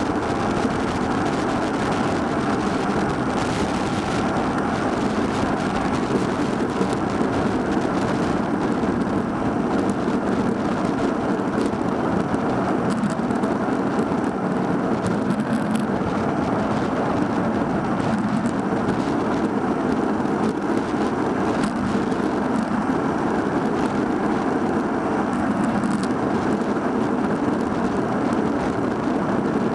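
Steady rush of wind and road noise from riding a bicycle, buffeting the microphone of a Cycliq Fly 12 handlebar camera. It holds at an even level throughout.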